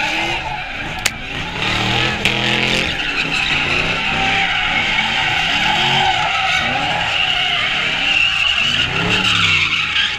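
A car spinning donuts: its engine revs up and down over and over while the tires squeal on the pavement. Two sharp snaps come about a second in and again a second later.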